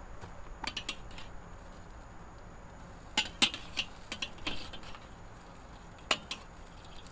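Metal spatula clinking and scraping against the steel grate of a charcoal kettle grill as it is worked under hamburger patties to flip them. There are a few sharp clicks about a second in, a busier cluster in the middle and one more near the end, over the faint steady sizzle of the burgers.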